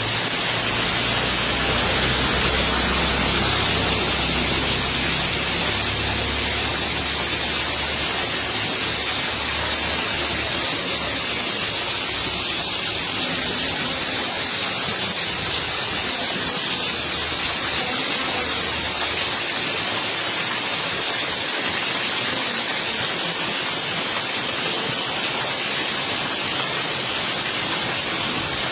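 Steady rain falling, an even loud hiss with no breaks.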